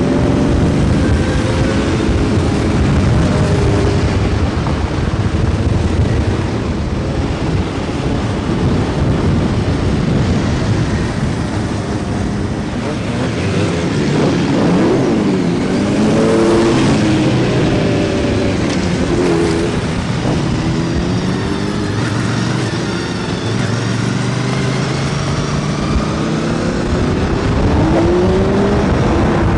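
A large group of motorcycles riding in a column, many engines running at once. Around the middle several bikes pass close by, their engine notes rising and falling across each other, and near the end one engine's pitch rises.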